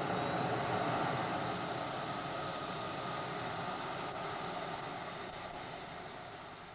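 Boeing 737-400's CFM56-3 turbofan engines running at taxi power: a steady hiss with a high whine, fading near the end as the jet moves away.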